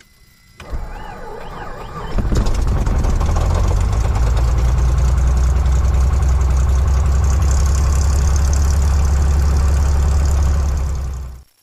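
A small plane's Continental GO-300 geared flat-six engine being started cold: the starter cranks it for about a second and a half, then it catches and settles into a steady idle, heard from inside the cabin. The pilot soon calls it running kind of rough, with no heat on cylinder 2. The sound falls away suddenly near the end.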